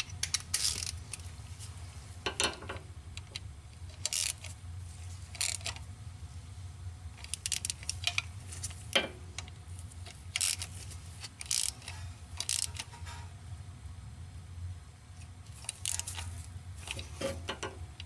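Hand ratchet clicking in short spells a few seconds apart as it runs in the small mounting bolts of a new transmission range switch, over a steady low hum.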